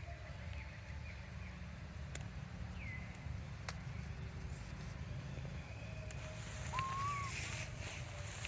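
A few faint, short high calls of an animal, some seconds apart, with scattered light clicks over a steady low rumble.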